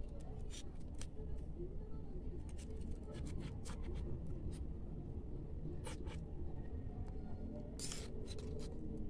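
A small knife cutting a miniature cake, with irregular short scrapes and light clicks, the strongest about six seconds in and around eight seconds, over a low steady hum.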